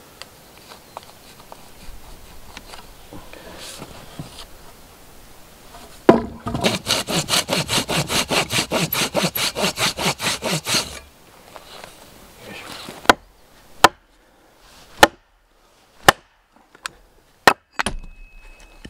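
A hand saw cutting through a log in quick, even strokes, about five a second, for some five seconds, after quiet scraping and handling of the wood. Then sharp single axe blows on wood, about one a second.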